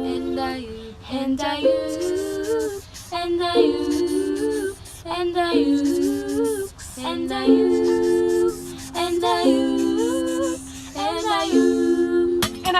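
Music: a singing voice in short melodic phrases, each about a second long, with gliding pitch and no drum beat.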